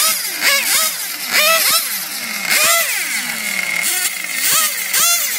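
Radio-controlled drag cars' engines revved in quick throttle blips on the start line, about two a second, each rising sharply in pitch and falling away.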